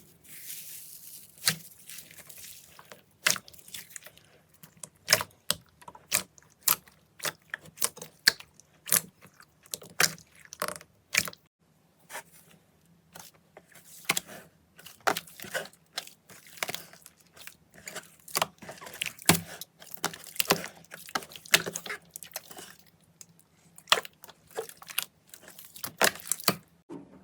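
Slime being pressed and squeezed by hand, giving many sharp, irregular clicking and popping sounds with short pauses between runs of them.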